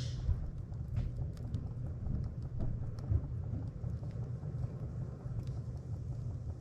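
A small, freshly lit kindling fire crackling in a wood stove: scattered sharp little crackles over a steady low rumble.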